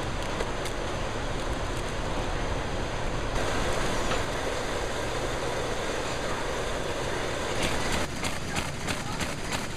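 Steady factory machinery noise. About three seconds in, a roller conveyor carrying a tote takes over with a rolling rattle. Near the end, a paper-handling machine runs with fast regular clicking, about four to five clicks a second.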